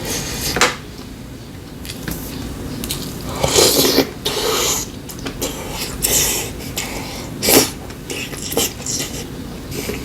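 Eating utensils clinking and scraping against dishes during a meal: scattered sharp clicks and a few short scraping bursts, irregularly spaced.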